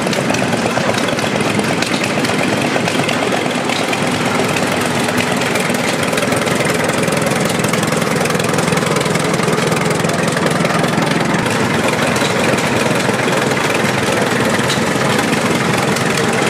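McCormick-Deering W-30 tractor's four-cylinder engine running steadily.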